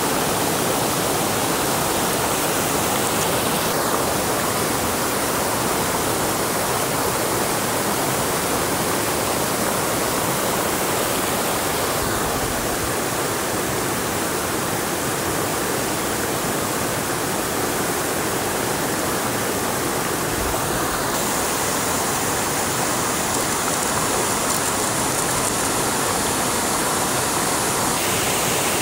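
Steady rushing hiss of water with no pauses; its upper tone shifts a little several times.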